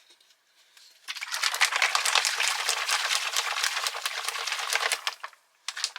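A capped bottle of water with orange drink powder shaken hard for about four seconds, the liquid sloshing in quick, uneven splashes, starting about a second in and stopping near the end.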